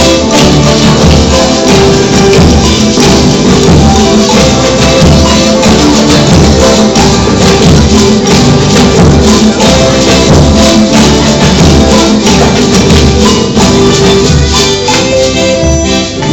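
Music played by a group: sustained instrumental notes over a steady beat with dense shaken or rattling percussion.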